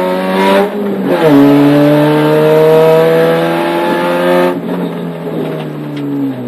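Rally car engine heard from inside the cabin under hard acceleration. The pitch climbs, drops sharply on an upshift about a second in, and climbs steadily again. About two-thirds of the way through the driver lifts off and the engine note falls away.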